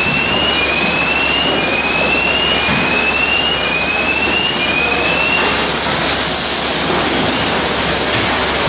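Bakery bread-crate stacking line and roller conveyors running: a steady, loud machine noise. Over it, a short, slightly rising whine repeats about once a second and stops about five and a half seconds in.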